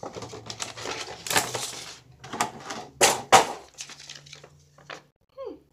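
Clear plastic packaging crinkling and crackling as it is handled and pulled apart, with a few sharp, louder crackles about halfway through and fainter rustles after.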